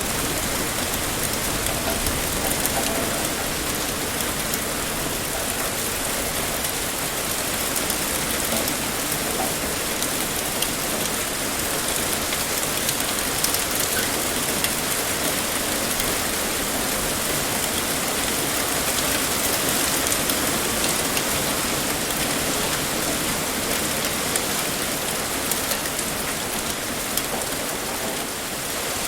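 Heavy rain pouring steadily, a dense even hiss with scattered drop ticks on a hard surface.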